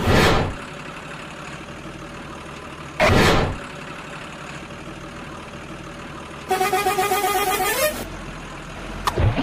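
Edited sound effects: a whoosh at the start and another about three seconds in, over a steady truck-engine-like hum. Near the end a horn sounds for about a second and a half, its pitch bending up just before it stops.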